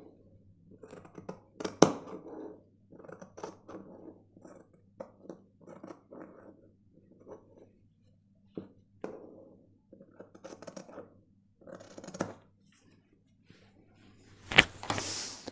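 Tailor's scissors trimming the edge of a shirt sleeve, snipping through the cloth in a series of short cuts, roughly one every second. Near the end comes a longer rustle of fabric as the cloth is brushed by hand.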